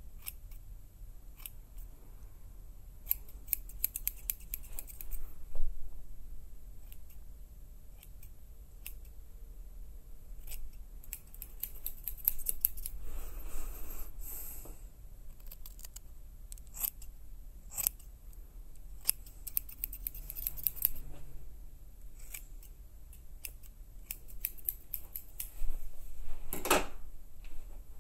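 Scissors snipping close by in several runs of quick snips, recorded binaurally for a 3-D headphone effect, with a short louder rustle near the end.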